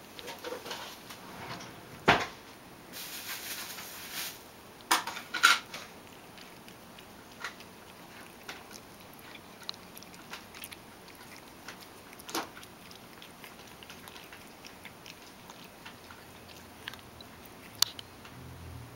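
Ragdoll cat licking its lips and nibbling at cat cake in a stainless steel bowl: scattered soft mouth clicks and smacks, with a few sharper clicks about two, five, twelve and eighteen seconds in, and a short hiss about three seconds in.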